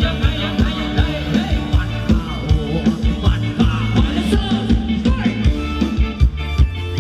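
Live band playing an upbeat Thai ramwong dance song: a steady, fast drum beat over heavy bass, with a voice singing over it.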